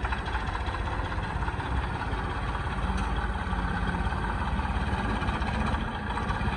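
Brick-plant mud-making (clay-mixing) machine running steadily with a continuous engine-like mechanical noise.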